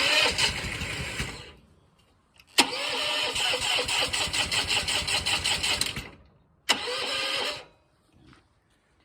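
Pressure washer's engine being started three times, each time running briefly and then dying away, the longest run lasting about three and a half seconds in the middle.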